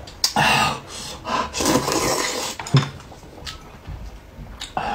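A person slurping noodles from a bowl: two long, noisy slurps in the first half, then quieter chewing with a single sharp click.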